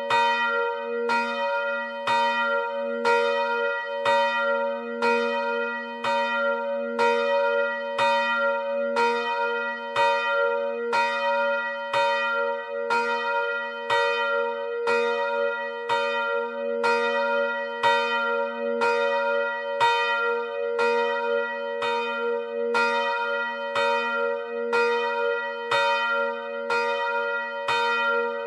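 A swinging church bell ringing alone: a 350 kg, 85 cm bell cast by Rudolf Perner of Passau in 2009, tuned to b' (B-flat). Its clapper strikes at a steady, even pace, and the deep hum of each stroke rings on under the next.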